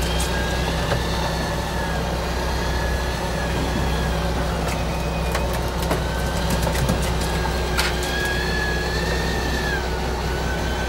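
Fishing boat's engine running steadily with a low hum, over which a thin high whine wavers slightly in pitch. A few light clicks come in the middle.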